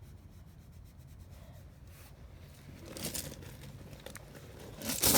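Synthetic steel wool pad scrubbing rust spots off a Simplicity tractor's hydraulic lift ram, a scratchy rubbing that grows louder about three seconds in. A sharp knock near the end.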